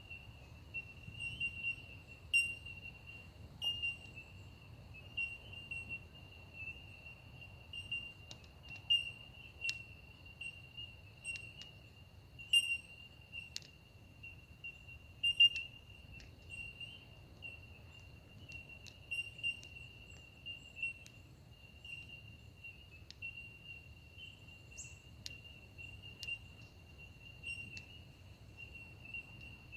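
Steady, unbroken high-pitched trill of an insect chorus, with short sharp bird calls breaking in every second or two.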